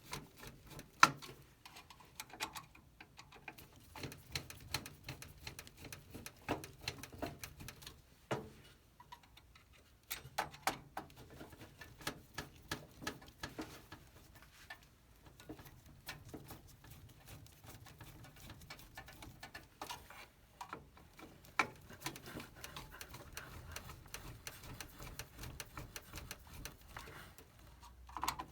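CPU cooler mounting screws being tightened by hand: many small, irregular clicks and ticks as the screws are turned and the parts are handled.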